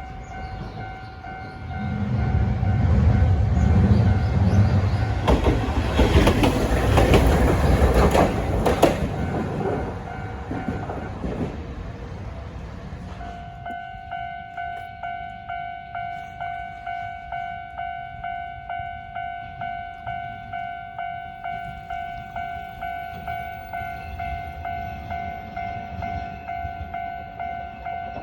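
Japanese level-crossing bell ringing in a steady kan-kan rhythm of about two strikes a second. A Hankai Tramway streetcar passes through the crossing from about two seconds in, its wheels rumbling and clicking over the rails for several seconds, then fades so the bell rings on alone.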